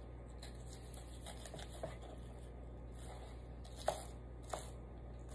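Kitchen knife mincing red onion on a wooden cutting board: light, irregular taps about two a second, with two louder knocks around four seconds in.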